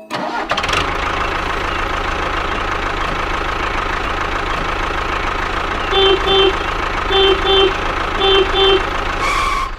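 A small engine running steadily, with a horn giving a quick double beep three times, about a second apart, in the second half.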